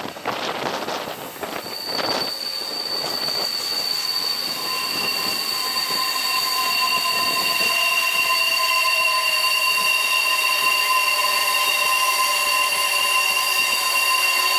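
Rhaetian Railway narrow-gauge train's wheels squealing on a tight curve of track. Several steady high tones set in about two seconds in and hold throughout, over train running noise that grows louder as it nears.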